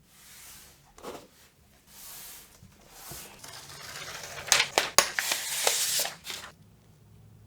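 Cardboard and paper packaging of an iPad Pro box being handled while unboxing: a few short rustling swishes and a tap, then a longer, louder stretch of crinkling and crackling with several sharp snaps, which stops suddenly.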